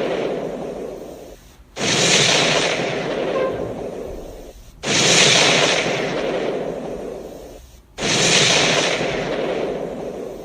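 Explosion-like sound-effect blasts repeating about every three seconds. Each starts suddenly and fades away over about three seconds, with three new blasts in all.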